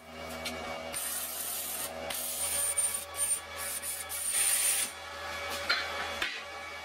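Stick-electrode arc welding on a steel frame: the arc crackling and hissing, stopping about five seconds in.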